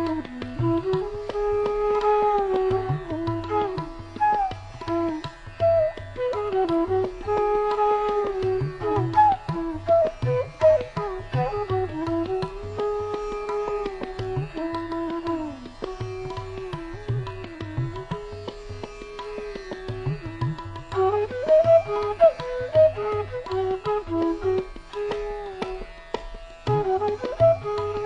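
Instrumental background music in an Indian classical style: a melody instrument holds long notes and slides between them over steady hand-drum strokes.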